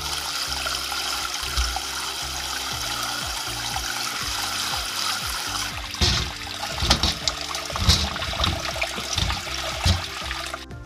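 Tap water running hard into a stainless steel bowl in a sink as parboiled pork backbone pieces are rinsed under it. After about six seconds the steady rush gives way to irregular knocks and splashes as the wet bones are handled in a metal colander.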